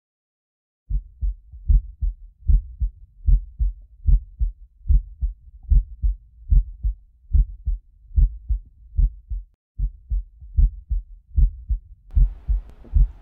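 Heartbeat sound effect: low double thuds, lub-dub, repeating about every 0.8 seconds, starting about a second in. A faint steady hiss joins near the end.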